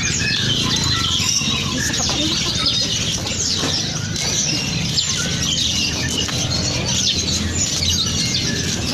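Many caged songbirds chirping and twittering at once in a dense, overlapping chorus of short high calls, over a steady low hum.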